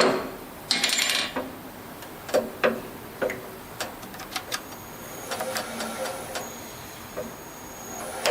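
A seat-and-guide machine spindle drilling out a broken intake manifold bolt from a cast-iron Ford 302 cylinder head. It gives scattered sharp metallic clicks and knocks, with a louder burst about a second in. A thin high squeal of the bit cutting comes in from about five to six and a half seconds.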